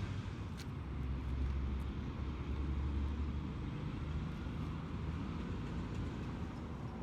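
Bus engine running with road noise, a steady low drone that swells slightly now and then.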